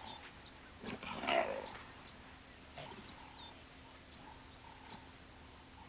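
Leopards play-fighting, a mother with her cubs: a short, rough growling snarl about a second in, then a fainter growl near the three-second mark.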